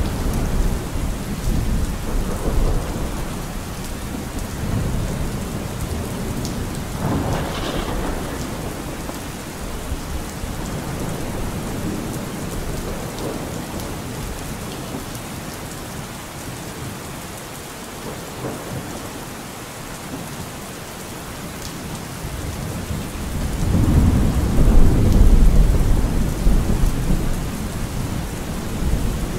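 Steady rain with rolling thunder. One rumble swells about seven seconds in, and a heavier, louder roll of thunder comes near the end.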